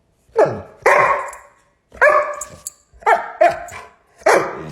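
Dog barking, about six loud barks in uneven groups.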